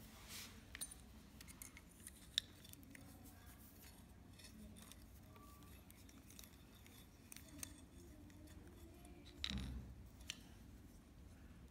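Near silence with faint scattered clicks and light handling knocks of small objects, and a slightly louder rustle about nine and a half seconds in.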